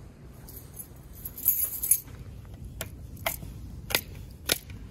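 Keys jingling on a key ring held in the hand, then four sharp clicks about half a second apart as a row of wall light switches is flipped.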